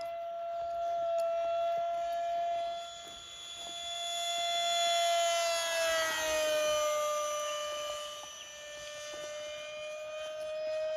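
Electric ducted fan of a radio-controlled model jet whining as it flies past: a steady high whine with many overtones grows louder, then drops in pitch about six seconds in as the jet passes and moves away, fading and coming back at the lower pitch.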